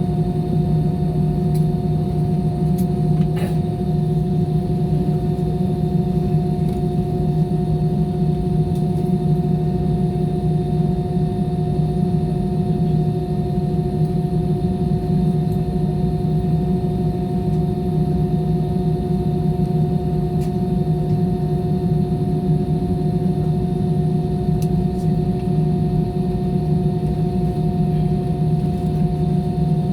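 Airliner engines heard inside the passenger cabin: a steady drone with a low hum and a constant pitched whine, holding level with no build-up of thrust, as the plane prepares for takeoff.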